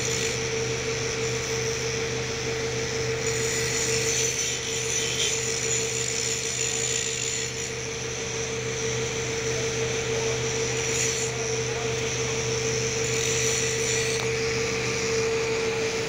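Mobile crane's engine and hydraulics running steadily while it holds and lowers a transformer radiator: a constant drone with a strong, unchanging mid-pitched whine.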